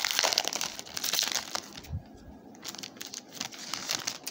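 Shiny foil wrappers of 2018 Panini football card packs crinkling and tearing as they are ripped open by hand, loud for about the first two seconds, then quieter rustling and a few light clicks as the cards come out.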